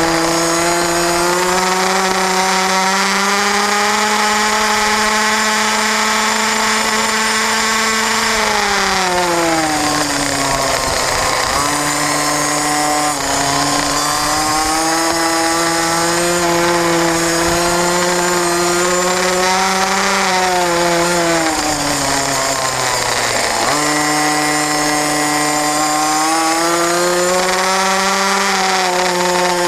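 Small racing motorcycle engine heard onboard at high revs. Its pitch falls away twice, about nine and twenty-one seconds in, as the rider rolls off for corners, then jumps back up and climbs again as the throttle opens.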